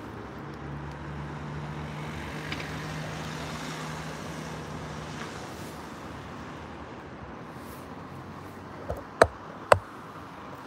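A vehicle engine idling with a steady low hum that stops about five seconds in, over a constant background of outdoor traffic. Near the end come three sharp knocks, the last two the loudest sounds.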